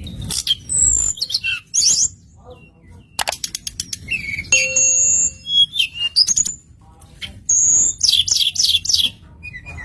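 Blue flycatcher (tledekan) singing a string of varied high whistled phrases and fast trills, with short pauses between phrases.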